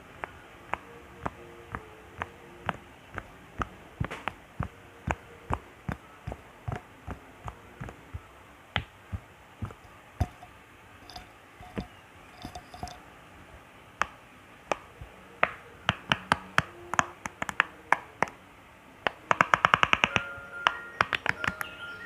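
Bubbles of a silicone pop-it fidget toy being pressed one after another: sharp pops about two a second, coming faster later on and becoming a rapid run of pops near the end.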